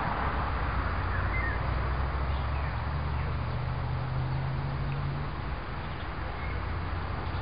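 Outdoor background noise with a steady low hum, like a distant engine, that eases off about five seconds in, and a few faint bird chirps.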